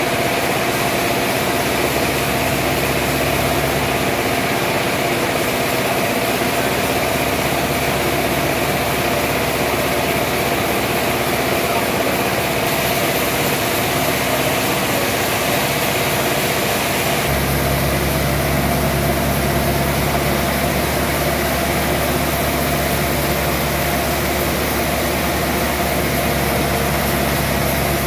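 Large band sawmill running steadily with an even machine hum, not cutting; a deeper low hum comes in about 17 seconds in.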